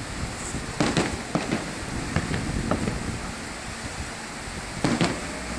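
Aerial fireworks shells bursting at a distance. A few sharp bangs come about a second in, smaller pops are scattered after them, and two louder bangs follow close together near the end.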